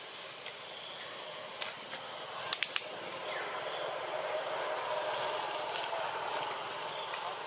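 Outdoor ambience: a steady hiss, a quick run of three sharp clicks about two and a half seconds in, and a faint hum through the second half.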